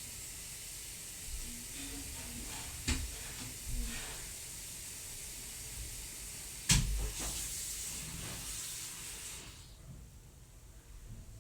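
Water running with a steady hiss, broken by a few knocks, the loudest about two-thirds of the way in; the hiss stops shortly before the end.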